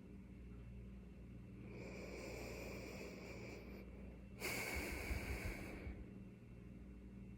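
A sleeping person breathing: two noisy breaths, the second louder and starting suddenly about four and a half seconds in.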